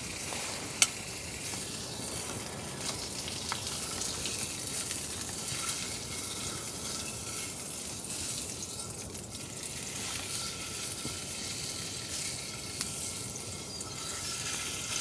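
Bacon sizzling in a frying pan: a steady crackling hiss, with one sharp click about a second in.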